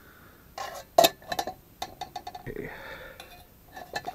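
Metal clinks and knocks as a Stanley steel cook pot and tealight holders are handled and set into a tin-can hobo stove, the loudest knock about a second in, with a short rustle in the middle.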